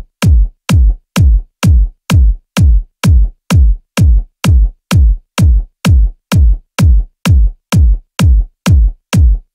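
Electronic dance music: a lone kick drum beating steadily, a little over two beats a second, each beat dropping in pitch into a deep bass thud, with silence between beats.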